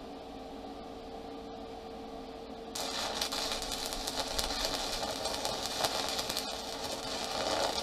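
Stick (arc) welding with a 3/32-inch 7018 rod at about 102 amps on quarter-inch steel plate. After a faint steady hum, the arc strikes suddenly about three seconds in and crackles steadily.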